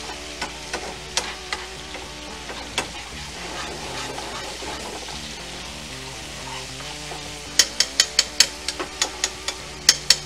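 Chopped garlic sizzling in olive oil in a frying pan while a metal spoon stirs it, clicking against the pan now and then, then in a quick run of taps near the end. Background music plays underneath.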